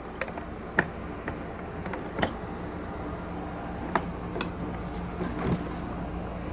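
Hoover Dial-a-Matic vacuum cleaner motor running with a steady hum, with several sharp clicks and knocks from the machine being handled.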